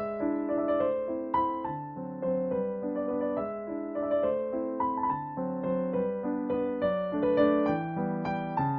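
Background piano music: a gentle melody over changing chords.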